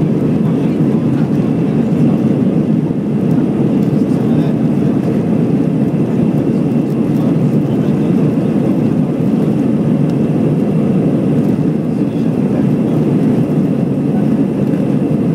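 Airbus A320 jet engines running with a steady, even low noise that holds its level and pitch throughout, with no spool-up.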